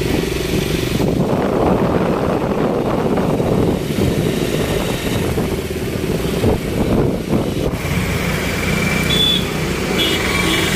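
Motorcycle engines running close by in town traffic, with road and wind noise, a few short high tones near the end.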